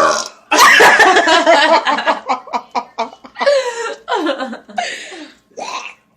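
People laughing loudly: a long burst of laughter, then quick rhythmic ha-ha pulses, then several bursts that fall in pitch.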